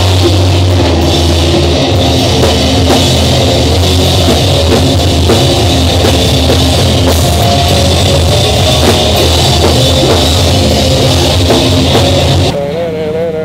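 Live rock band playing loudly, with drum kit and cymbals driving under the guitars. The music cuts off abruptly near the end.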